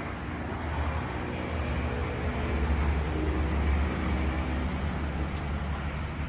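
Steady low rumble under an even background hiss, with a few faint steady tones in the middle: outdoor ambience on a handheld recording, with no clear single event.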